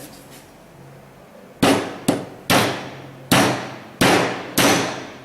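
Small hammer tapping a rivet into the cover plate of a quick-release ratchet: six sharp strikes that ring briefly, starting about a second and a half in, spaced about half a second to a second apart.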